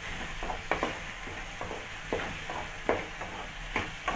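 Chopped tomatoes and onions frying in oil in a kadai, being stirred: a utensil scrapes the pan about twice a second over a steady sizzle.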